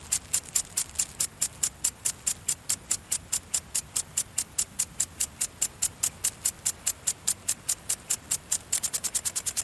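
Impact-type garden sprinkler spraying in regular hissing spurts, about four a second as it steps round. Near the end the spurts come about twice as fast, as on the sprinkler's quick return sweep.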